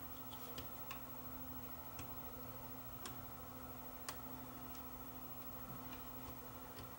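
A few faint, irregular small clicks as a tool pries at the little plastic retainer clip holding the pinch roller in a Sony 8mm camcorder's tape mechanism, over a steady faint hum.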